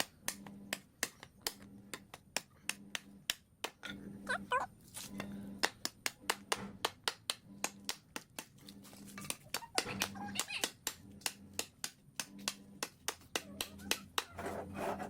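A rapid run of sharp taps or clicks, about four a second, with faint voices in the background.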